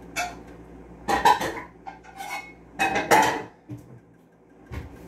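Metal pots and frying pans clattering and banging together as they are moved and swapped, in several separate bursts, loudest about a second in and again around three seconds in.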